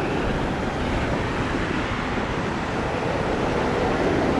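Steady wash of sea surf on the beach mixed with wind noise on the microphone.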